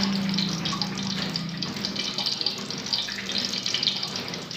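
Hot cooking oil in a steel wok sizzling and crackling, over a steady rushing hiss. A low hum is heard over the first second or so.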